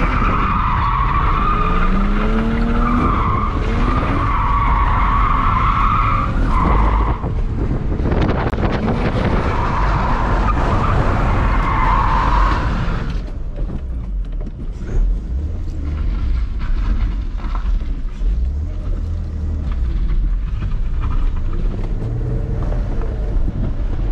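BMW E46 drifting: the engine revs up in rising sweeps while the tyres squeal through two long slides, the second ending a little past halfway. The car then runs on more quietly with a low, steady engine drone.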